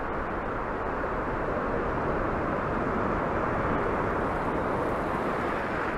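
Surf breaking and washing up the beach: a steady rushing hiss that swells a little in the middle and eases near the end.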